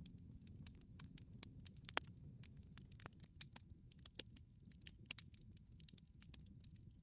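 Campfire crackling: irregular small pops and snaps over the low rumble of the burning fire.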